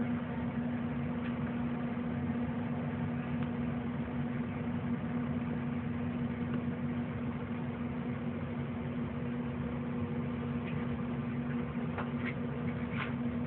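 Steady low hum, with a few faint clicks near the end.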